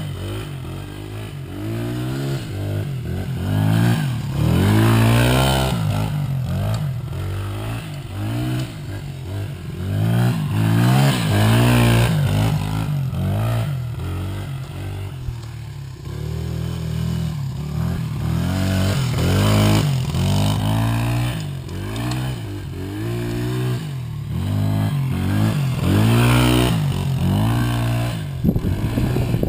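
A dirt bike and an ATV riding laps on a tight circular dirt track, their engines revving up and dropping back over and over, the pitch rising and falling every second or two as the riders throttle in and out of the turns.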